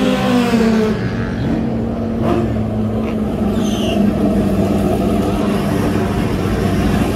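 Drag racing motorcycles' engines running hard on the strip during an eighth-mile pass. The engine note falls slightly in the first second, then runs steady and loud.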